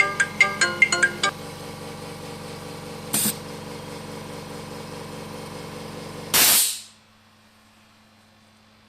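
Vacuum seal tester running: an electronic beeping tune ends about a second in, then a steady hum with a short hiss near three seconds in. About six seconds in, a loud burst of hissing air is heard, after which the hum stops: the chamber vacuum is being released and the test pressure returning to zero.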